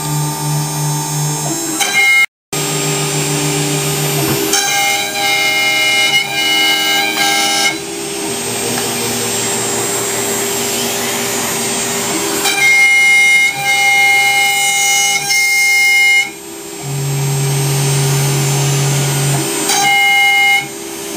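CNC router carving a wooden sign: the spindle's cutting noise mixed with held whining tones from the axis motors that jump to a new pitch every few seconds as the machine changes direction.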